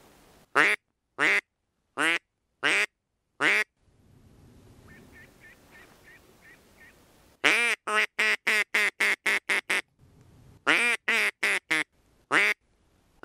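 Loud duck quacking in a hen mallard's pattern. It starts with five single spaced quacks, then after a short pause comes a fast run of about ten quacks and then a run of about six.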